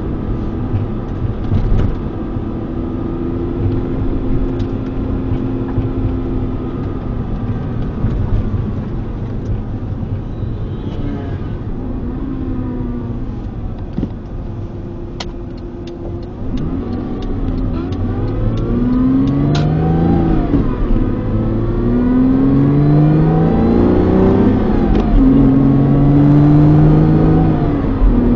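Porsche Boxster 987's flat-six engine running, its pitch steady for the first half. From about halfway the revs rise and fall again and again, as under repeated acceleration, with scattered faint clicks.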